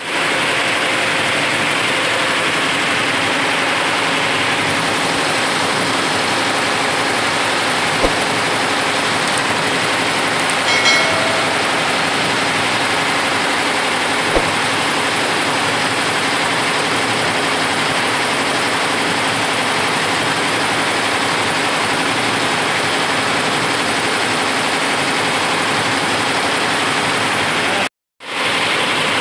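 Multi-head computerized embroidery machine running steadily, its row of needle heads stitching a design into fabric. There is a short high beep about eleven seconds in, and the sound cuts out for a moment near the end.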